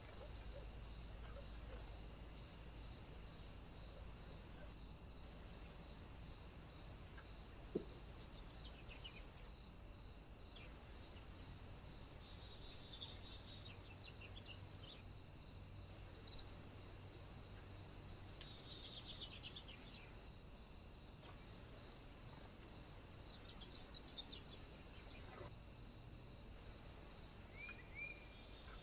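A few short, faint chirps and calls of small birds at a feeder, with a couple of sharp taps, over a steady high-pitched hiss with a faint regular pulse.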